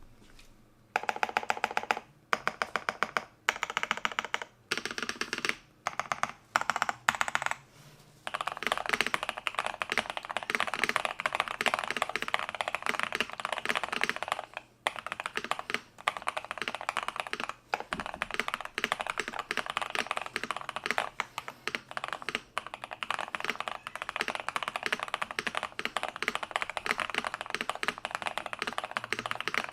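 Modded Keychron V5 mechanical keyboard being typed on: its Nebula V2 switches are lubed and filmed, and the board has a PC plate, gasket-style mounting, case foam and a tape mod, tuned to thock. Several short runs of rapid keystrokes come in the first eight seconds, then steady fast typing with only brief pauses.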